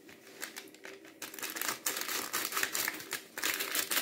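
Small paper packet of baking powder crinkling and rustling as it is shaken out and handled, in irregular crackles that get louder about two seconds in and again near the end.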